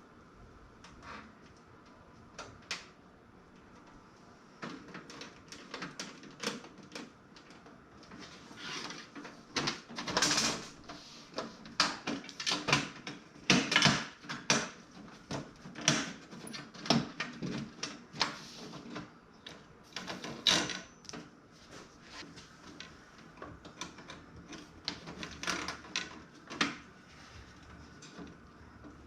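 Irregular clicks, knocks and rattles of an old toaster oven's case being fitted back together by hand, busiest and loudest in the middle stretch.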